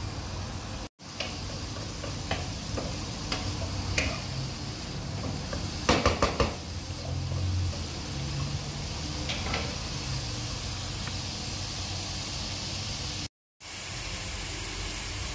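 Chayote strips and prawns sizzling steadily in a nonstick pan while a wooden spatula knocks and scrapes against it, with a quick run of knocks about six seconds in. The sound cuts out briefly twice, at about one second and near the end.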